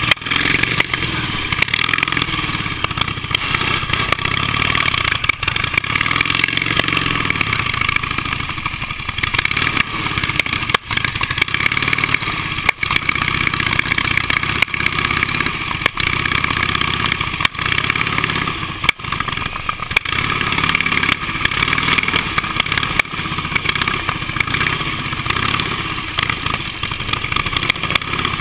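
Engine of an early vintage motorcycle running at low speed, heard from on board, its note rising and falling a little with the throttle.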